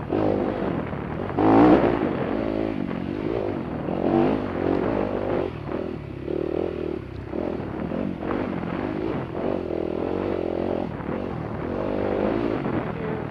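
Off-road dirt bike engines revving up and down over and over, loudest about two seconds in.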